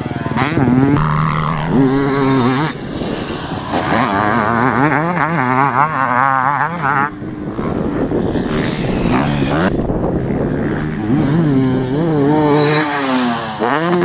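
Fuel-injected KTM 300SX two-stroke motocross bike being ridden hard over jumps, the throttle opened and shut again and again. The engine note rises and falls repeatedly, with short drops in level when the throttle is closed.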